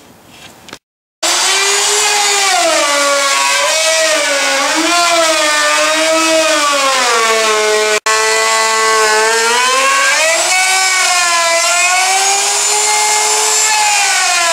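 Handheld router running at full speed and cutting out a wooden bulkhead along a screwed-down template. It starts about a second in, and its whine sags and recovers in pitch as the bit takes and sheds load in the cut.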